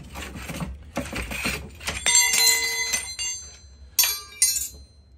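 Scissor jack being lowered with its steel rod handle, the metal rattling and scraping. About two seconds in comes a loud metallic clink that rings on for about a second, and two sharp metal clicks follow near the end.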